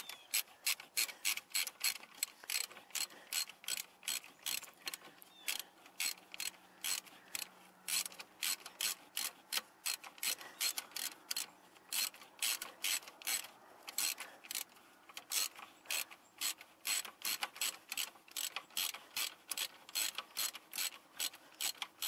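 Hand ratchet wrench clicking steadily, about two to three clicks a second with a couple of brief pauses, as a starter motor's mounting bolt is run in and tightened.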